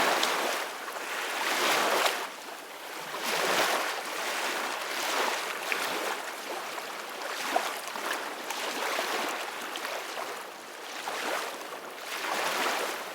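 Ocean waves washing onto a shore, swelling and falling back every second or two.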